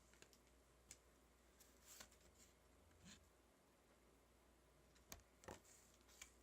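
Near silence with a few faint, short clicks and rustles of trading cards being handled and flipped through.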